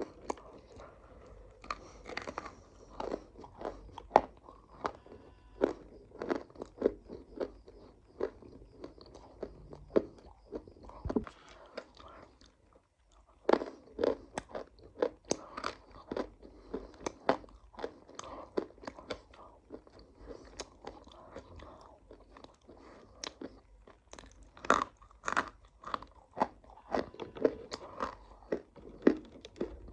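A person biting and chewing crunchy food close to the microphone: a fast run of sharp crunches, with a brief pause about halfway through.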